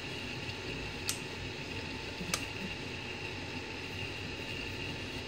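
3D printer running mid-print: a steady whir of its fans and motors with a high, even tone. Two sharp ticks break through, about a second in and again just past two seconds.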